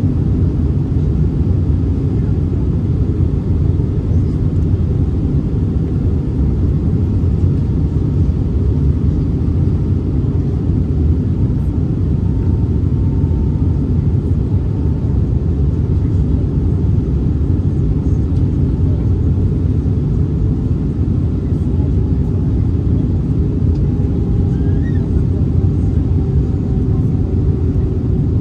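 Steady cabin rumble of an Airbus A319-112 in flight on approach: its CFM56 engines and the airflow over the fuselage, heard from inside the cabin. A faint whine comes and goes in the middle and again near the end.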